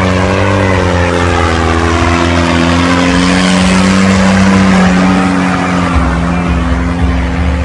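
Tractor diesel engine running hard at high revs, its pitch wavering slightly under load.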